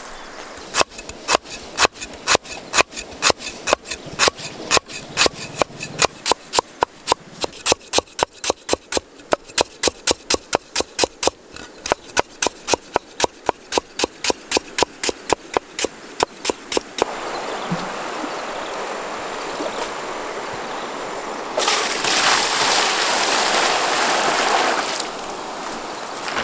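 A cleaver chopping lemongrass on a wooden cutting board, about three sharp strokes a second for some sixteen seconds. Then the chopping stops and water runs and splashes, louder for about three seconds near the end.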